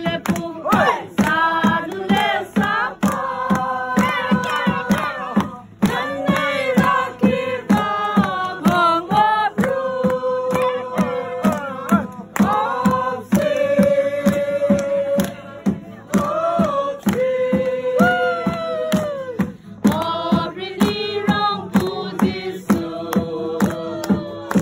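A group of carolers singing a Christmas carol together in chorus, over a steady percussive beat.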